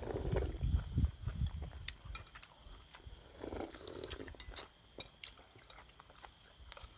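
A low rumble of wind buffeting the microphone, then scattered small clicks and mouth sounds of someone eating.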